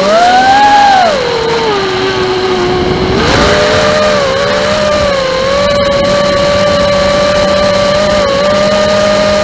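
Furibee Darkmax 220 FPV racing quadcopter's brushless motors whining in flight, the pitch rising and falling with the throttle: up in the first second, down low for a moment, then up again after about three seconds and held fairly steady with brief dips.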